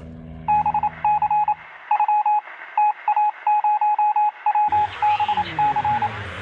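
A single-pitch electronic beep keyed on and off in an irregular pattern of short and longer pulses, like Morse code or a radio signal. Underneath, a low engine hum fades out early, and a rising whooshing sweep swells in near the end.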